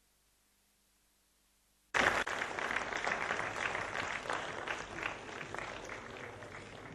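Audience applauding. It starts suddenly about two seconds in after near silence, then slowly dies down.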